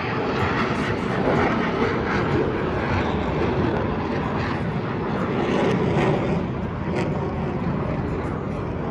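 Jet noise from the Blue Angels' F/A-18 Super Hornets flying over the show field, a steady rushing sound that swells about a second in and again around six seconds.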